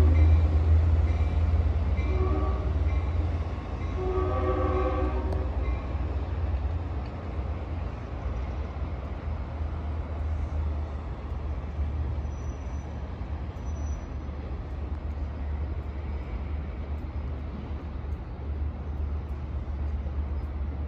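Long Island Rail Road train sounding its chime horn: the end of one blast, a short blast about two seconds in, then a longer blast about four seconds in, the close of a long-long-short-long grade-crossing signal. A steady low train rumble carries on after the horn stops.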